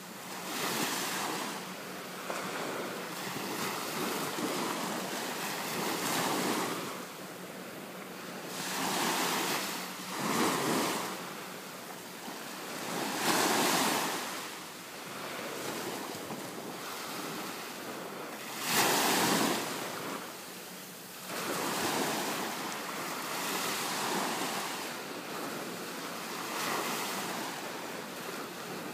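Atlantic Ocean surf washing in, the sound swelling and easing every few seconds, with wind on the microphone.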